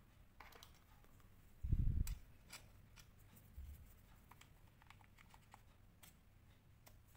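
Faint light plastic clicks and taps as a GoPro Hero 10 battery and the camera body are handled and the battery is pushed into the camera's battery compartment. A dull low thump, the loudest sound, comes about two seconds in, and a smaller knock comes a little later.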